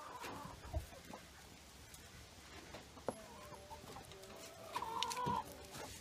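A flock of chickens clucking softly, with a louder drawn-out call about five seconds in. A couple of short knocks come near the start and about halfway through.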